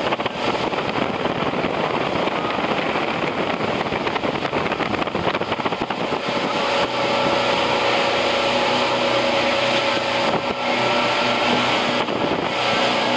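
Motor cruiser's engines running steadily at cruising speed, a constant drone with a rush of wind and water over it.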